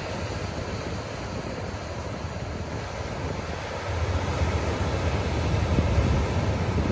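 Ocean surf washing on the beach, with wind buffeting the phone's microphone. A low rumble swells about halfway through.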